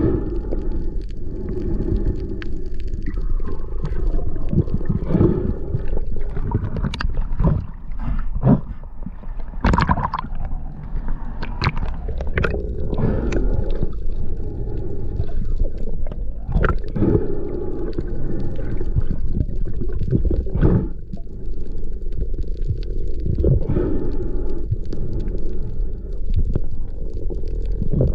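Underwater sound of a diver swimming with a first-person camera: a steady low rumble of moving water with scattered clicks, knocks and gurgles.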